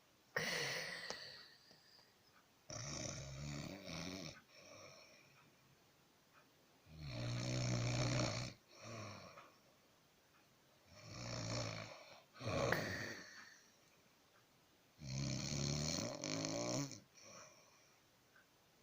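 Heavy snoring in sleep: four long, rattling snores about four seconds apart, each followed by a shorter, sharper breath out.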